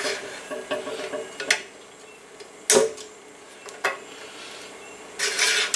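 Metal hand tools being handled on an air compressor's pump head: a few light ticks, a sharp metal clank nearly three seconds in, and a short clattering scrape near the end as a combination wrench is worked on a brass fitting.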